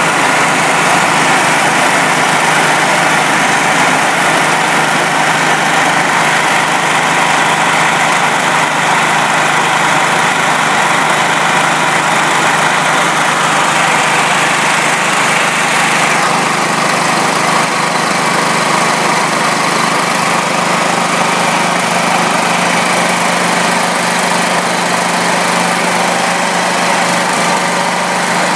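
Small portable generator engine running steadily at about 3,100 RPM on gasoline vapor drawn through its carburetor, under the control of its governor.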